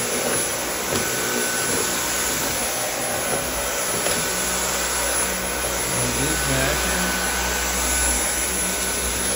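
Dyson V8 cordless stick vacuum running steadily on max power, vacuuming a rug.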